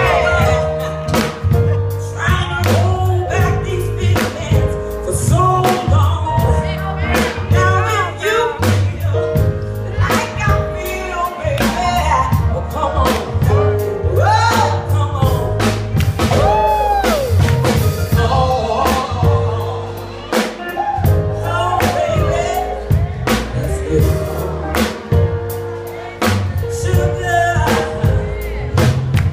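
A woman singing live into a microphone, her voice wavering and sliding between held notes, over piano accompaniment with steady bass notes and a regular beat.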